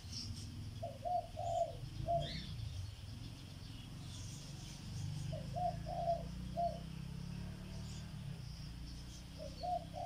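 A dove cooing: a short phrase of three or four low notes, repeated three times about every four seconds, over a low steady rumble, with faint higher bird chirps.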